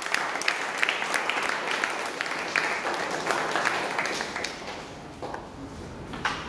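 Audience applauding at the end of a speech, the clapping dying away about five seconds in.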